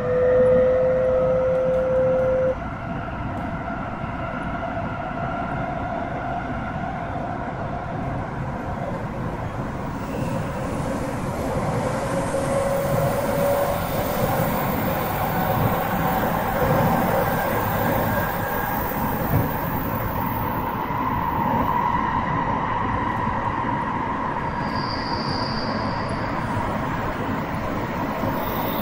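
Tsukuba Express TX-1000 series electric train running, heard from inside the car: a steady rumble of wheels on rail under a motor and inverter whine that slowly rises in pitch. For the first two and a half seconds a loud steady tone sounds over it and then cuts off suddenly.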